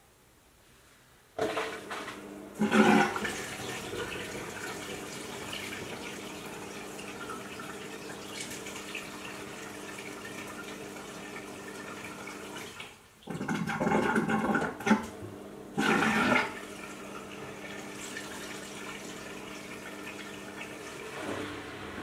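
Aldi front-load washing machine filling with water. A steady rush of water with a hum starts suddenly about a second in, swells louder a few times, and a lower hum joins near the end.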